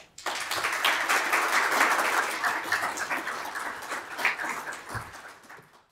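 Audience applauding: many hands clapping at once, which fades away near the end.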